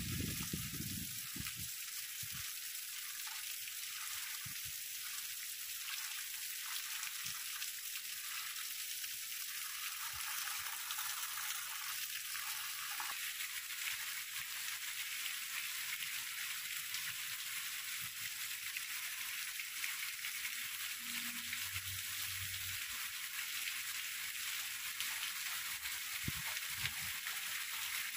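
Heavy rain falling on grass and tree leaves: a steady, even hiss.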